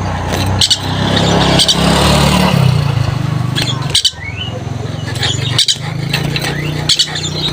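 Lorikeet giving several short, sharp calls over the steady hum of an engine running, which swells about a second in and eases back after about three seconds.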